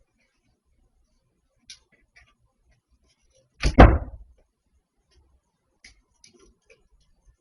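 One loud bang about halfway through, sudden and lasting about half a second, with a few faint clicks before and after it.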